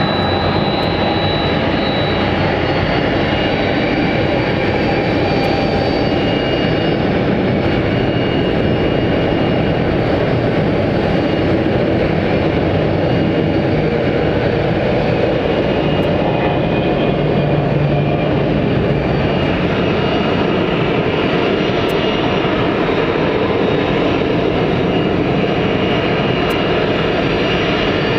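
Jet engines of a Boeing 767 freighter taxiing at low power: a steady rumble with thin high whining tones that come and go.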